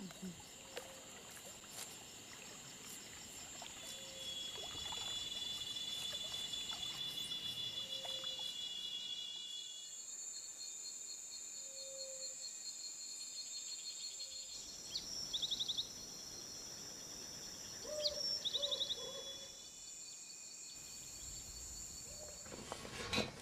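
Outdoor countryside ambience: insects trilling steadily at a high pitch, with a few short bird calls and two quick chirping runs about two-thirds of the way through.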